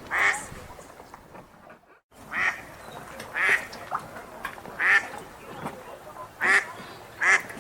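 Wild ducks quacking: six short, loud quacks at uneven gaps of about a second, over a faint steady outdoor background. The background cuts out to silence briefly about two seconds in.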